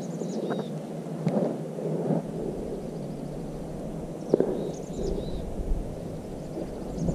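Wind buffeting the camera microphone as a steady rumbling hiss that grows deeper from about two seconds in, with a few light knocks. A small bird's short, high chirping call sounds twice, near the start and again past halfway.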